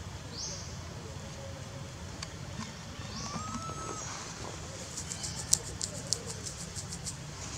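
Wild birds calling: a couple of short whistled notes and quick rising high chirps, then a rapid run of sharp clicks at about five a second in the last couple of seconds, over a steady low rumble.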